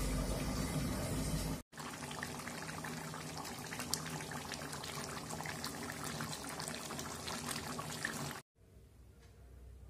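Thick curd-based chicken curry gravy bubbling in the pan, a dense, even crackle of many small pops. It is preceded for about a second and a half by a louder, deeper rush and cuts off abruptly shortly before the end.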